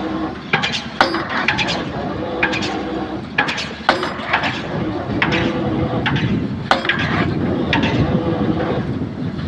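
Excavator drop-hammer pile-driving rig at work: a diesel engine running steadily under repeated sharp metallic clanks and knocks with short ringing, coming irregularly about one or two a second.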